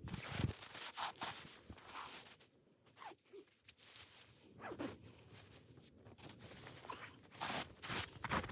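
Irregular short rustling and scraping noises with a few brief squeaks, quiet for a while in the middle.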